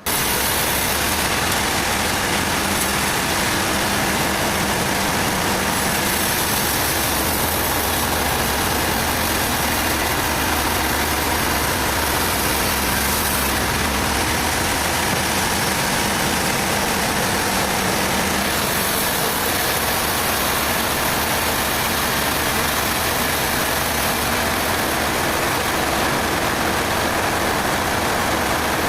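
Heavy engine of sawmill machinery running steadily and loudly, its pitch and level unchanging, under a dense wash of mechanical noise.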